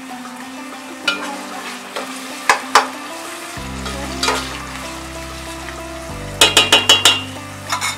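Chopped tomatoes and onions sizzling in oil in a metal pot while a metal spoon stirs them, scraping and clinking against the pot. A quick run of clinks comes about six seconds in.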